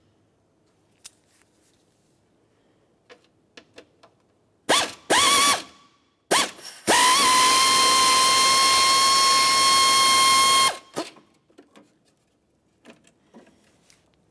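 Pneumatic air ratchet with a Phillips bit backing out screws: three short bursts, then one run of about four seconds whose whine rises as it spins up and then holds steady, over the hiss of exhausting air. Light clicks of handling come before and after.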